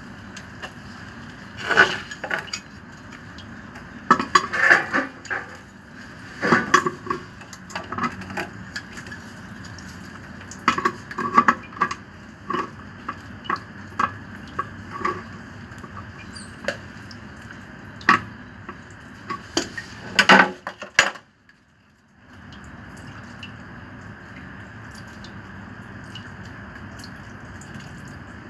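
Irregular clinks, knocks and handling noises of tools and pipe fittings being worked by hand while a peripheral water pump is fitted, over a steady background hiss; the knocking stops about three-quarters of the way through.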